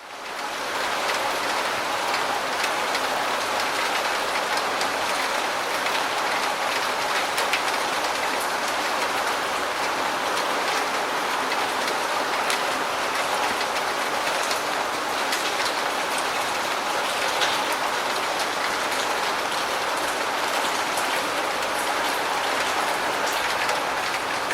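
Steady rain falling: an even hiss with scattered sharp ticks of drops, fading in at the very start.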